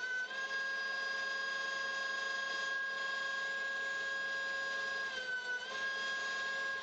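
Benchtop thickness planer running, with the shop vacuum on its dust hood: a steady high motor whine. Its pitch drops briefly about five seconds in.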